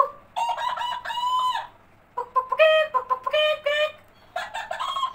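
Talking cactus toy giving out a high-pitched electronic voice in three quick runs of short syllables.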